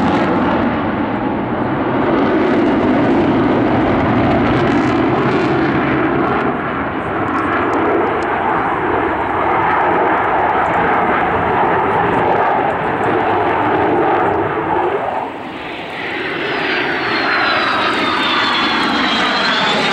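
Sukhoi T-50 (PAK FA) fighter's twin AL-41F1 turbofan engines, a loud steady rush of jet noise during an aerobatic display. The noise dips briefly about three-quarters of the way through. Then a high engine whine falls in pitch and rises again near the end as the jet passes close overhead.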